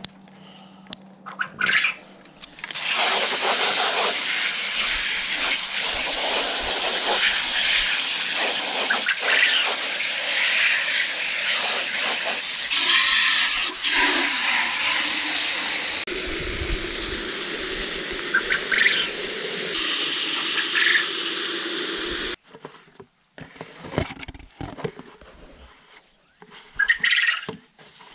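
Water running hard from a tap or hose into a container, a steady hiss that starts about three seconds in and is shut off suddenly about twenty seconds later. Light clicks and scratching come before and after.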